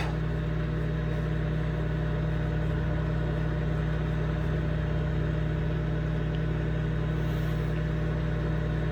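Microwave oven running: a steady low electrical hum.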